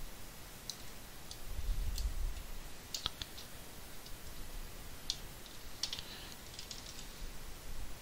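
Computer mouse and keyboard clicks: scattered single clicks and a few quick runs of clicks, with a brief low rumble about two seconds in.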